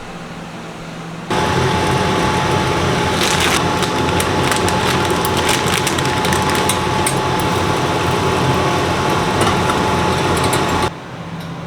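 A long draw through a water-filled electronic dab rig (e-rig): a steady bubbling rush with fine crackle, starting abruptly about a second in and cutting off suddenly near the end. It is a 'blinker', a hit held until the device's light blinks to end its cycle.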